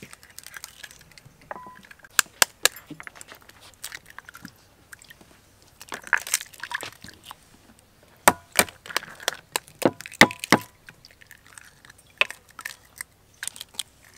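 Raw eggshells being tapped with a wooden spoon and cracked open over a bowl: a string of sharp cracks and taps, coming in clusters, with the busiest run about two thirds of the way through.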